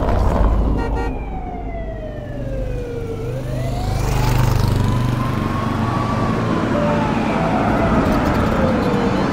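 Emergency vehicle siren wailing in slow sweeps: its pitch falls, rises and falls again over a low rumble.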